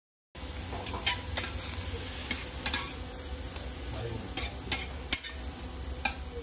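After a moment of silence at the start, shredded cabbage and meat sizzle steadily on a flat-top griddle while two metal spatulas toss and scrape them, with frequent sharp clicks of steel on the griddle plate.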